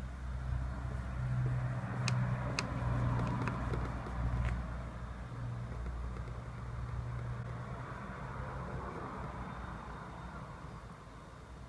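Low rumble of a passing vehicle, swelling and fading, with a few sharp clicks between about two and four and a half seconds in.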